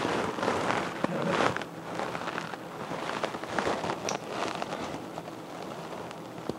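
Gloved hands rubbing and turning a raw whole fish over a dish of lime, vinegar and salt water: wet squishing and crackly dripping, a little louder in the first two seconds. This is the fish being washed in its lime-vinegar-salt bath before cooking.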